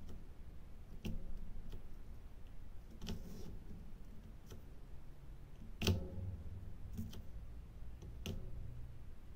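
Scattered small plastic clicks and ticks of diamond-painting work: a drill pen picking resin drills from a plastic tray and pressing them onto the canvas, the loudest click about six seconds in, over a low steady hum.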